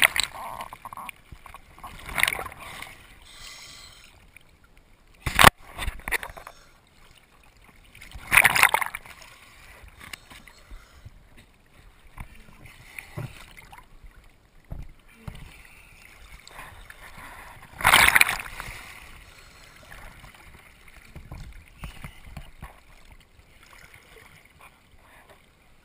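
Sea water splashing and sloshing over a camera held at the waterline, in repeated surges, the biggest about eight and eighteen seconds in. A sharp knock comes about five seconds in.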